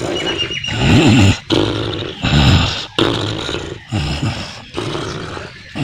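Loud, rough growling and roaring sounds in repeated bursts about every second and a half, the strongest about one and two and a half seconds in.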